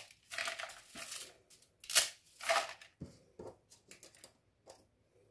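Dry spaghetti being snapped by hand into a bowl: sharp cracks of breaking strands, the loudest at the start and about two seconds in, with the rustle of handled strands between, thinning to lighter clicks near the end.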